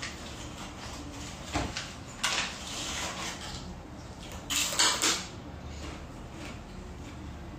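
A few short household knocks and clatters at a table: a single knock about one and a half seconds in, a brief rustling scrape soon after, and the loudest cluster of clatters about two-thirds of the way through.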